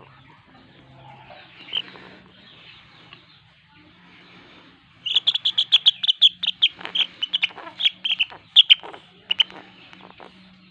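Young chicken chirping in a rapid run of sharp, high calls, starting about halfway through and lasting about four seconds.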